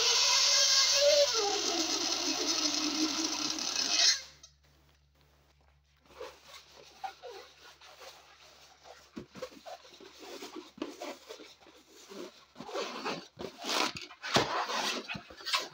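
Air squealing out through the stretched neck of a latex balloon, a loud steady squeal that drops in pitch about a second in and cuts off suddenly at about four seconds. After a short silence, latex balloon rubbing and squeaking under the hands, growing louder near the end.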